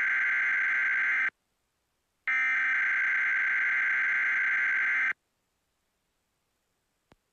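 Emergency Alert System SAME header data bursts: a harsh, buzzing digital warble. One burst cuts off about a second in, and after a short gap a second burst lasts about three seconds. A couple of faint clicks follow near the end.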